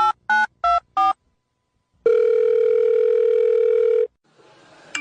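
Touch-tone phone keypad beeps: short two-note tones, about three a second, stopping about a second in. After a short gap a telephone ringing tone on the line sounds once, steadily, for about two seconds.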